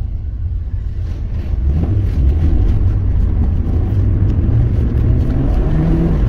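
Car engine and road noise heard from inside the cabin while driving. About two seconds in it gets louder as the car accelerates, and the engine note climbs near the end.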